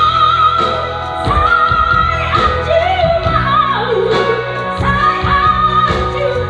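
Female voices singing long, high held notes with vibrato over backing music.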